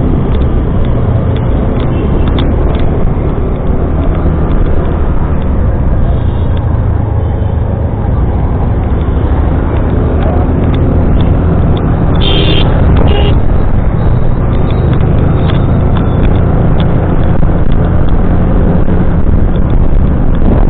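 Motorcycle engine running at road speed, a steady low rumble mixed with wind rushing over the microphone, getting a little louder about halfway through. Two short high-pitched sounds cut in about twelve seconds in.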